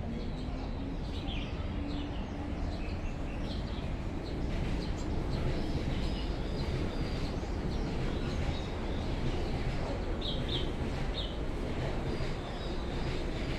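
Caged songbirds chirping in short high calls, scattered through the clip with a quick cluster about ten seconds in. Beneath them runs a steady low rumble of city noise that grows a little louder partway through.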